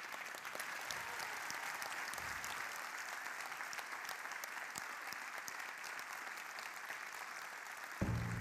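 Large audience applauding steadily, a dense even clapping, with music coming in near the end.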